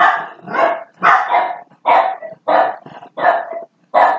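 A dog barking repeatedly, about seven barks at an even pace, roughly two a second.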